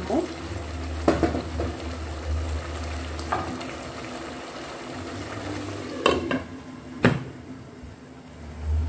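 Wooden spoon stirring a thick chicken curry simmering in a pot, over the steady bubbling of the sauce, with a few sharp knocks of utensils on the pot. The two loudest knocks come about a second apart in the second half, as a glass lid is set on the pot.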